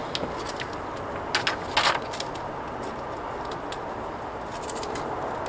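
A paper instruction leaflet being handled and unfolded: a short cluster of crisp rustles and crinkles about a second and a half in, then a few lighter ticks near the end.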